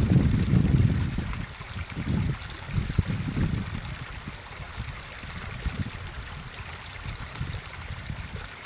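Wind buffeting the camera microphone in uneven low gusts, strongest in the first second, over a faint steady hiss.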